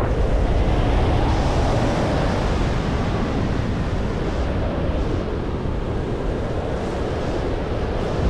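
Steady rush of wind on the microphone from the airflow of fast speedflying flight.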